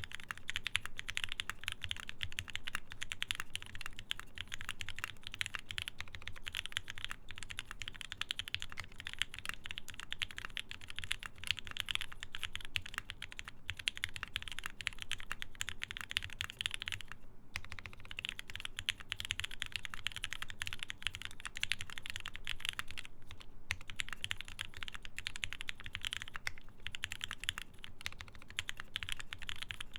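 Steady, fast typing on a Geonworks F1-8X mechanical keyboard with lubed Gateron Ink switches in a full aluminum plate. Typing pauses briefly twice, about 17 and 23 seconds in.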